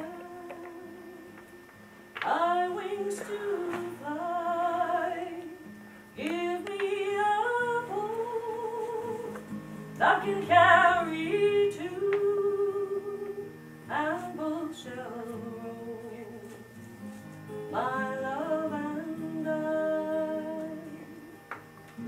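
A woman singing a slow song in held phrases with short breaks between them, accompanied by an acoustic guitar.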